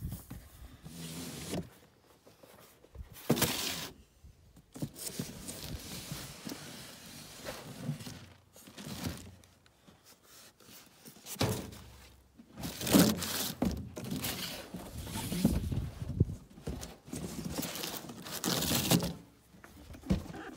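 Cardboard box and packaging being handled during unboxing: irregular rustling, scraping and thuds as cardboard flaps are opened and a plastic-wrapped foam insert and a small cardboard box are pulled out and set down, with some crinkling of plastic.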